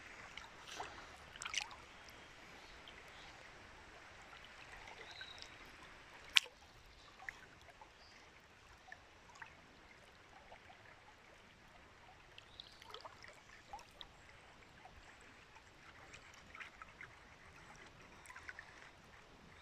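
Faint running river water around a wading angler, with scattered small ticks and splashes and one sharp click about six seconds in.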